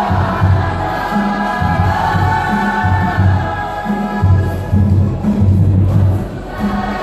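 Cook Islands music: a group singing in chorus over a repeating heavy low beat.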